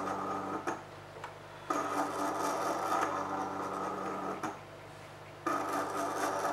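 CD-ROM drive's sled stepper motor, driven by an L293D motor shield at 50 RPM, running the optical pickup along its lead screw with a steady buzzing whine. It runs in stretches of one to three seconds, broken twice by about a second of quieter hum.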